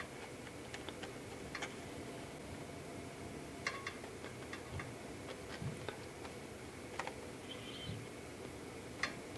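Faint, irregular small clicks and taps from hands working a fabric patch onto a paper speaker cone, over a steady background hiss.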